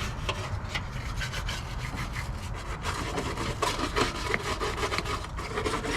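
A hand brush scrubbing the bare engine bay sheet metal of a Nissan 350Z in quick, repeated back-and-forth strokes as it is cleaned before sanding.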